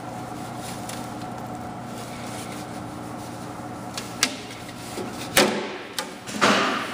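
Thin aluminum body panel handled and flexed by hand and set against the buck: a few light clicks, a sharp metallic tap about five seconds in, then a brief scraping rush as the sheet rubs into place, over a steady background hum.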